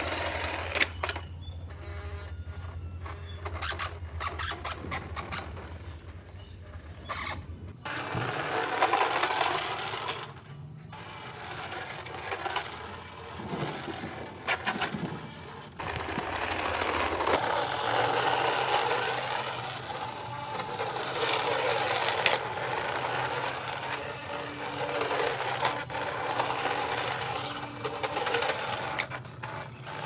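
Small electric motor of a homemade remote-control toy truck whirring as it drives over concrete, running in spells that start and stop several times.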